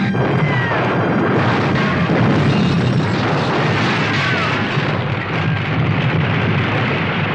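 Film soundtrack: a loud, sustained crashing rumble like an explosion or collapsing debris, with music mixed in.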